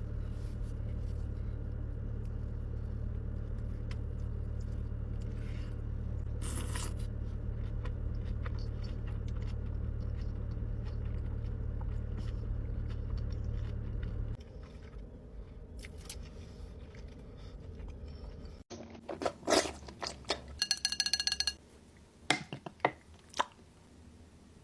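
Someone biting and chewing food, with faint crunches and clicks over a steady low hum like a car's idling engine. Later come louder sharp crunches and clinks of eating and utensils.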